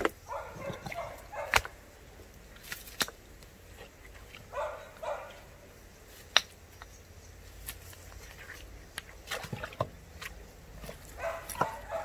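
Scattered sharp knocks and clicks as a spring basin is cleaned out by hand, the loudest about halfway through. A few short whining sounds come in near the start, in the middle and near the end.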